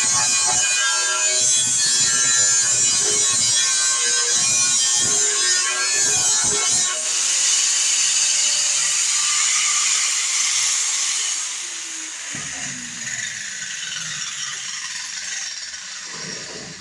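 Music for the first several seconds, then a small power tool running with a steady hiss. In the last few seconds it winds down, its pitch falling.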